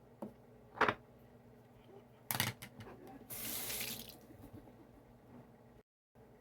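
A few knocks and a clatter, then water running from a tap for about a second.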